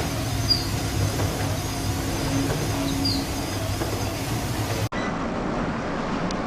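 A steady low rumble, like heavy machinery. About five seconds in it cuts abruptly to a different, duller recording of a similar rumble.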